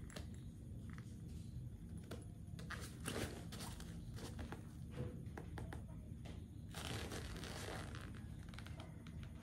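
A nylon backpack being handled: rustling and brief scrapes and clicks of its fabric and fittings, coming and going.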